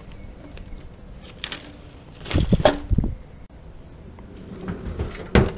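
Rear cargo drawer of a Jeep being handled and pushed shut: a cluster of knocks and clatter about two and a half seconds in, then one sharp knock near the end as the drawer closes.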